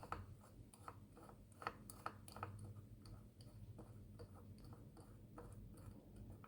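Near silence with faint, scattered small clicks and rubs, like a small plastic device being handled.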